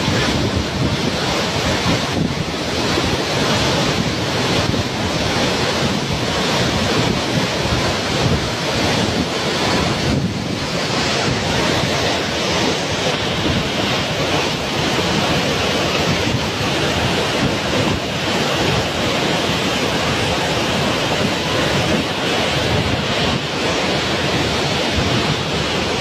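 Waterfall pouring: a steady, loud rush of falling water.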